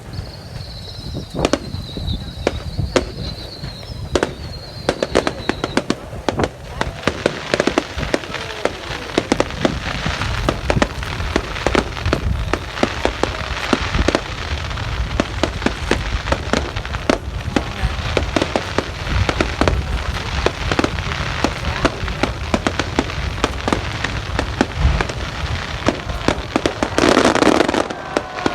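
Fireworks display: a dense, continuous run of bangs and crackling bursts. A few falling whistles come in the first few seconds, and a loud rushing burst comes near the end.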